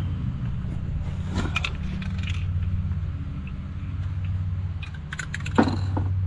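A steady low mechanical hum of an engine or motor running nearby, with a few light clicks and a sharper knock near the end.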